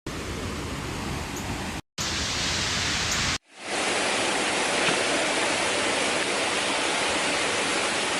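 Steady rush of a waterfall, cut into three short pieces: a brief break about two seconds in, and a sudden drop about three and a half seconds in before it fades back up.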